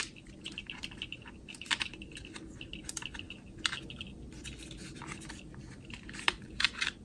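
Small screwdriver turning a screw in the plastic fender well of a Traxxas TRX-4 RC truck: light scratchy clicks and crackles of screw and plastic parts being handled, with a few short squeaks.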